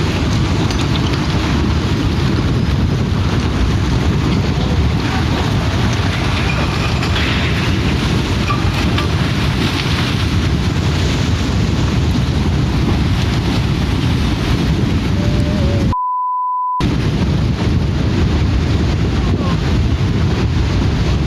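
Loud, steady wind buffeting the microphone with rushing water beneath it. About sixteen seconds in, everything cuts out for under a second and a single 1 kHz bleep sounds in its place.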